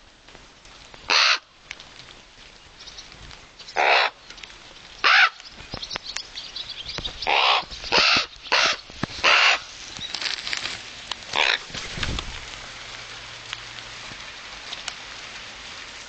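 Common ravens calling, about eight separate calls, with a quick run of four between about seven and nine and a half seconds in.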